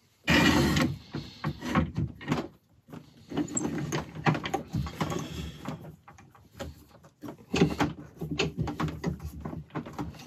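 Metal wood-lathe tailstock being slid along the lathe bed and its live centre wound in against the bowl blank: a loud scrape about half a second in, then irregular knocks and clicks.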